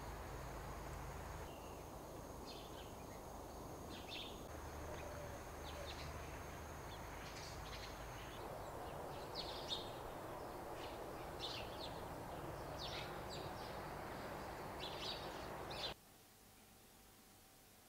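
Outdoor ambience: a steady low rush with scattered short bird chirps. It cuts off suddenly near the end to quiet room tone.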